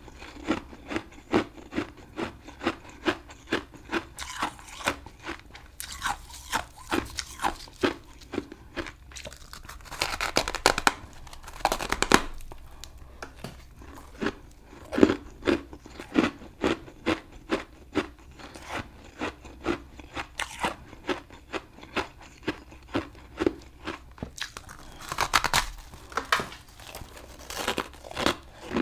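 Close-miked chewing of a hard, crunchy chunk of freezer frost, with a steady crunch about twice a second. There are louder, denser bursts of crunching about a third of the way in and again near the end.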